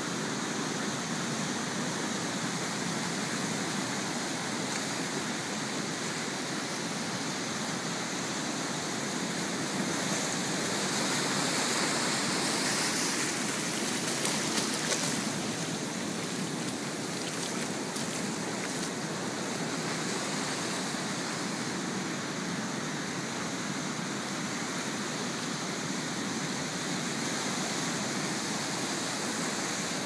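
Ocean surf breaking and washing up a sand and cobble beach: a steady rushing, with one wash swelling louder about halfway through.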